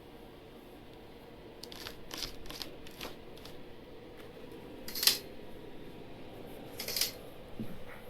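Portable air conditioner running with a steady hum. Over the hum come several light clicks of handling, then two sharper clicks a couple of seconds apart.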